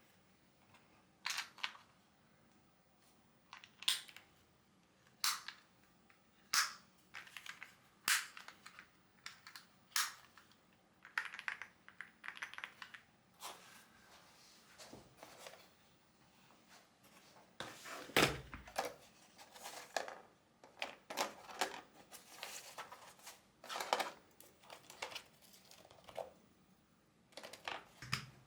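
Mechanical keyboard keys being pressed: single sharp clacks spaced a second or so apart at first, then quicker runs of typing in the second half, with one deeper knock about two-thirds of the way through.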